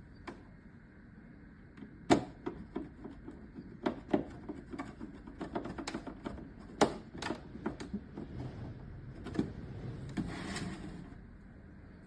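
Irregular clicks and knocks of plastic appliance housing parts being handled and fitted together during reassembly, with a short rustle near the end.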